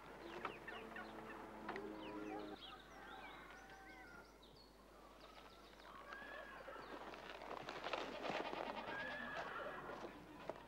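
Faint farmyard poultry calls and small-bird chirps: scattered short notes that rise and fall. A low steady tone runs through the first two and a half seconds.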